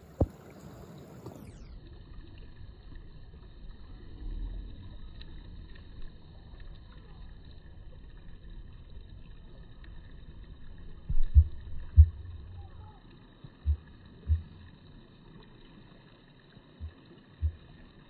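Low rumbling noise on a smartphone microphone, broken by several dull thumps, the loudest a cluster about eleven to twelve seconds in. A brief hiss at the very start cuts off after about a second and a half.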